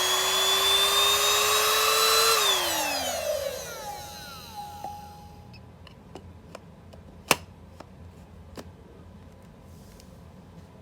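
Starument cordless handheld vacuum cleaner's motor running with a high whine, then switched off about two seconds in and spinning down. A few light clicks and one sharp click follow.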